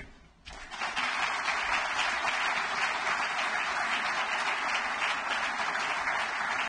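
Audience applauding. The applause starts about half a second in, after a brief hush, and keeps up steadily.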